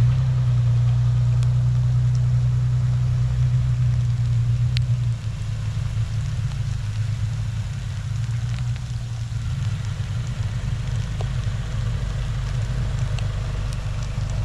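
A motor vehicle's engine running steadily with a low hum that eases slightly about five seconds in, with faint scattered ticks over it.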